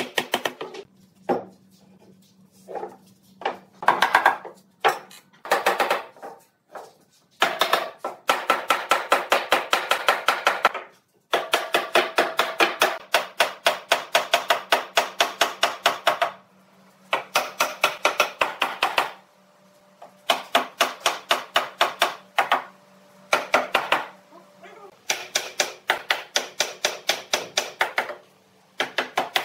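Rapid runs of sharp knocks, about five or six a second, in bursts of one to five seconds separated by short pauses, over a faint steady low hum.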